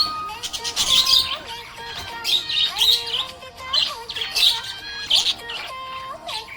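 Budgerigar chirping and warbling in repeated short bursts, over a simple synthesized children's-song melody.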